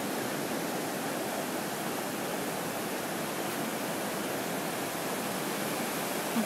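Ocean surf breaking, an even, steady rush of noise.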